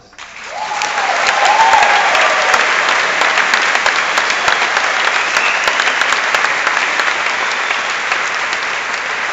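A large audience breaking into loud applause, starting suddenly and holding steady before easing slightly near the end. A single voice cheers over the clapping in the first couple of seconds.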